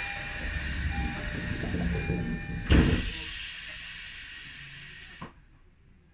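Train noise on the line: a loud steady hiss over a low rumble, with a sharp clunk about three seconds in. It cuts off suddenly about five seconds in.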